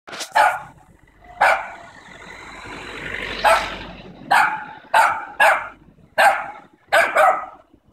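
Small dogs barking at a cat, about ten short, sharp barks at uneven intervals. A car passes between barks, about two to four seconds in.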